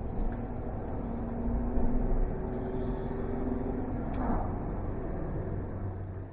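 Car driving, with steady engine and road noise under a low hum, and one sharp click about four seconds in.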